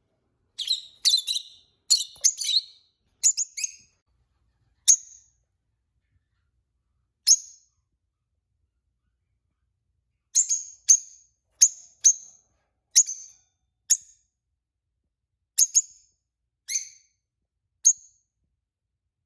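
Peach-faced lovebird giving short, sharp, high-pitched chirps, singly and in quick pairs. They come in a flurry over the first few seconds, then only one or two, and again as a run of chirps from about ten seconds in.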